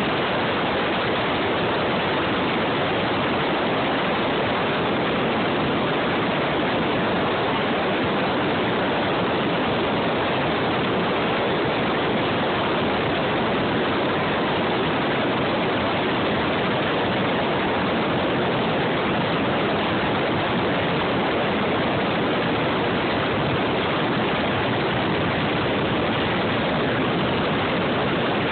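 Helicopter in flight, heard from inside the cabin by the open side door: engine, rotor and rushing air merge into one loud, steady noise with no distinct tone or beat.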